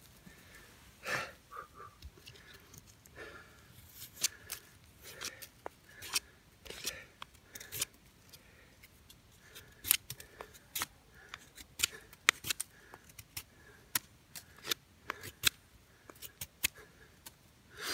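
Knife shaving a split stick of wood: a string of short, sharp cutting strokes at an uneven pace.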